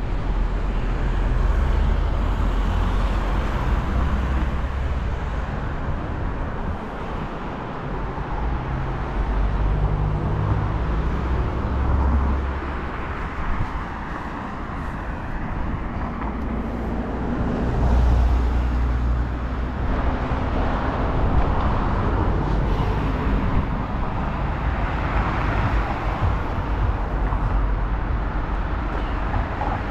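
City street traffic going by: a steady rumble and hiss of passing cars and other vehicles, swelling louder several times as vehicles pass close.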